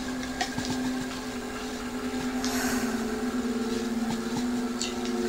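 A steady low hum of a few held tones, shifting slightly about halfway through, with faint scattered clicks and a brief hiss.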